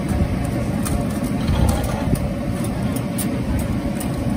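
Steady low roar of a street-stall deep-fryer setup, with light clicks of metal tongs and chopsticks against the wire rack and wok.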